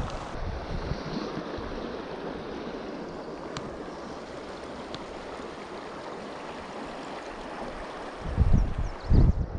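Shallow river riffle flowing steadily over rocks. Near the end come two short, loud low rumbles on the microphone.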